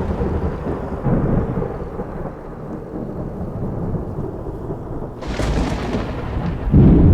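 Thunder rumbling through a severe thunderstorm, swelling about a second in, with a sharp crack about five seconds in and the loudest peal near the end.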